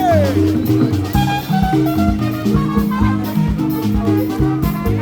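Background music with a steady beat, bass and chords, in an upbeat Latin or jazz style.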